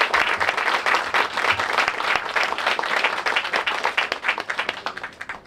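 Audience applauding, a crowd of hands clapping, tapering off near the end.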